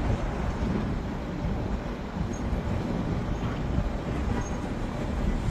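Monsoon storm wind blowing against the microphone: a loud, steady rushing noise, heaviest in the low end, swelling and easing slightly with the gusts.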